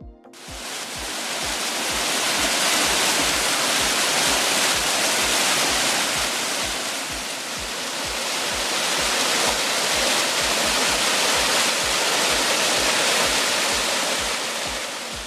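Small woodland waterfall cascading over rocks: a steady rushing of falling water that fades in at the start and fades out near the end. Background music with a low, steady beat runs underneath.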